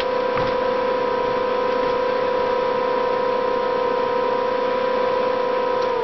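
Small 500-watt, 5,000 BTU air conditioner running on a solar inverter: a steady electric hum with a high whine. Right at the end it begins to wind down, falling in pitch, as the power cuts out when the compressor loads the inverter, which the owner puts down to a low-battery-voltage cutoff set too sensitive.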